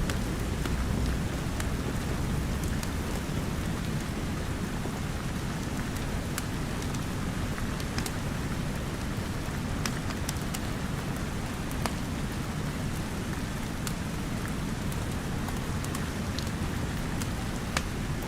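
Steady rain with a deep, even rumble underneath, and a wood fire crackling in scattered sharp pops, a few seconds apart.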